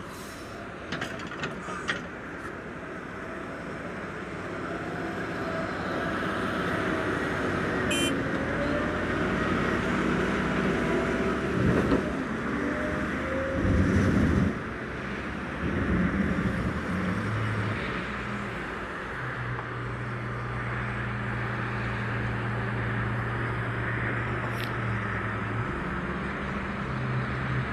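A motor vehicle's engine running continuously, its low note shifting in pitch several times as it changes speed.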